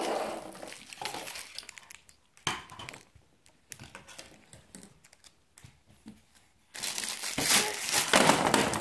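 Clear plastic wrapping crinkling as a child handles lollipops, in short rustles with quieter gaps in the middle. Near the end comes loud, continuous crinkling as the plastic bag is waved about.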